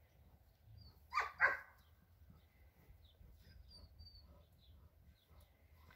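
A dog gives two short barks about a second in, with faint small-bird chirps around it.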